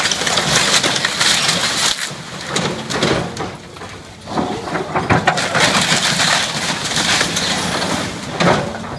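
Excavator bucket crushing and pulling down a wood-frame building: timber walls and siding crack, splinter and crash down in a dense crackle of breaking wood, with sharp cracks about five seconds in and again near the end.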